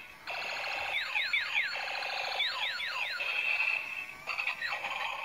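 Yellow transforming robot toy car playing its built-in electronic sound effects as it changes from robot into car: steady beeping tones with a run of quick falling pitch sweeps about one to three seconds in.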